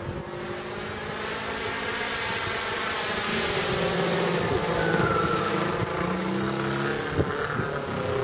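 Engine and propeller of a 33% scale Krill Su-29 radio-controlled aerobatic model plane flying overhead, a continuous drone whose pitch rises and falls as the plane manoeuvres. It grows louder toward the middle as the plane comes closer.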